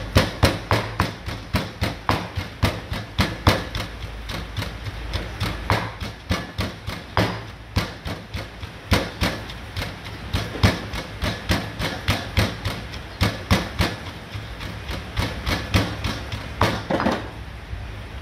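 Stone mortar and pestle pounding garlic, coriander root and pepper into a paste: a steady run of dull thuds, about two to three a second, that stops about a second before the end.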